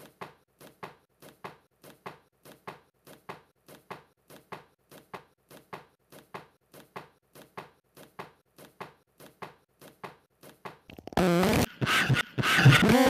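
A man punching himself in the head with his fist in quick, steady succession, soft thuds about two and a half a second that alternate louder and softer. About eleven seconds in, this gives way to loud, drawn-out vocal noises from a man.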